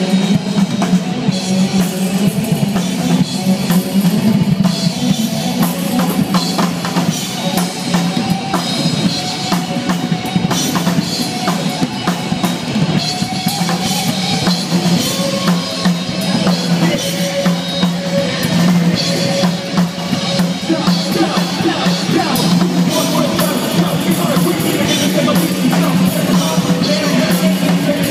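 Rock band playing live, with the drum kit most prominent (bass drum and snare) over bass and electric guitar.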